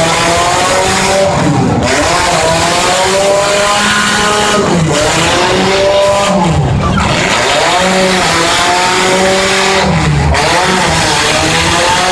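Demolition derby car engines revving hard, their pitch repeatedly dropping and climbing again as the cars back up and accelerate, over a constant loud din.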